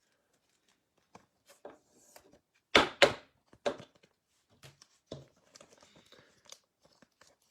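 A trading card pack wrapper being torn open and crinkled, with cards shuffled and set down. The loudest sound is a short, sharp rip about three seconds in, with smaller rustles and taps around it.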